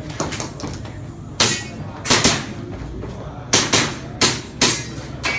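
Airsoft guns firing: about eight sharp cracks at irregular intervals, some in quick pairs.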